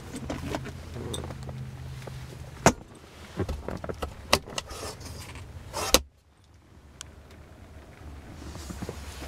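Clicks and knocks from the car's rear cabin trim being handled: a low hum, then several sharp clicks, and a heavier knock about six seconds in, after which the background drops much quieter.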